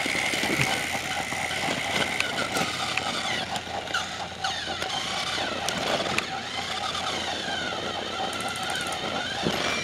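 Trackmaster motorized toy train motor whirring steadily, with plastic clicks and knocks as the toy engines are handled and pushed along the track. Short squeaky chirps rise and fall over it from a few seconds in.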